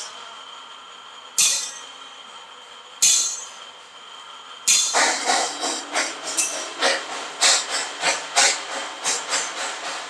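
Metal striking steel: two single ringing clanks a second and a half apart, then from about five seconds in a quick irregular run of clanks, about three a second.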